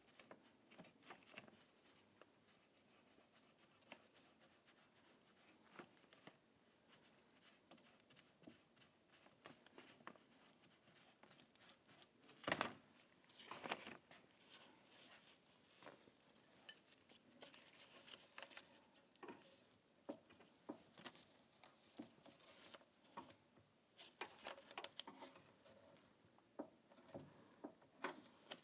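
Near silence with faint, scattered crinkles and clicks from hands working the door's plastic water shield and its adhesive; one louder click a little before halfway through.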